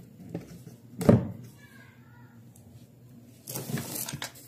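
A metal draw latch on a wooden case snaps shut with one sharp clack about a second in; near the end comes a brief rustling scrape of handling.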